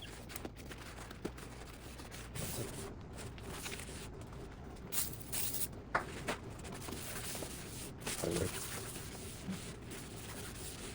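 Faint rubbing of a cloth wiped over the glass panel of an oven door, with a few short hissing strokes and light taps.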